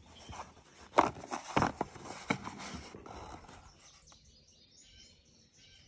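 Handling of an old cardboard bullet box with metal-reinforced corners: a few sharp knocks and scrapes between about one and three seconds in, the loudest about a second in, as it is turned over. Faint bird chirps near the end.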